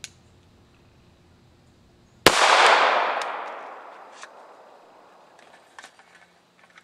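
A single pistol shot from a Glock 21 Gen4 firing .45 ACP, about two seconds in, with a long echo fading away over about two seconds. A small click near the start and a few faint ticks near the end.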